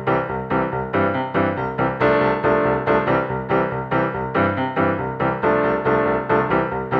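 Background music led by piano or keyboard, playing a steady rhythm of about four notes a second.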